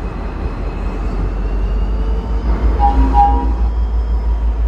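V/Line N class diesel-electric locomotive N469, its EMD 12-cylinder two-stroke engine running as it hauls a passenger train in, growing louder as it draws near. A short double tone sounds about three seconds in.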